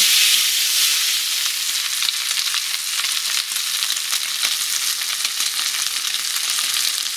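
Diced salo (cured pork fat) sizzling and crackling in a hot non-stick frying pan as it renders its own fat, with no oil added. It is stirred with a silicone spatula at first. The sizzle is steady and full of small pops, a little louder at the start.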